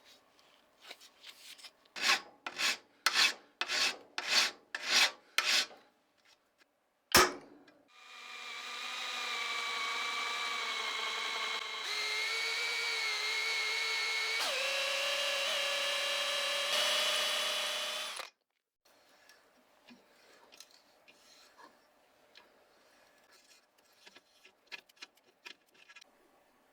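A workshop tool sequence. First come about eight even hand strokes of rubbing or filing, roughly two a second. Then a sharp click, and a small power tool runs steadily for about ten seconds, its pitch stepping a couple of times before it stops abruptly; faint light scraping follows.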